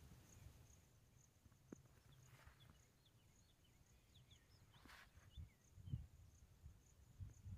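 Near silence: faint outdoor ambience with a high, steady pulsing about twice a second, a few brief high chirps in the middle, and a low rumble.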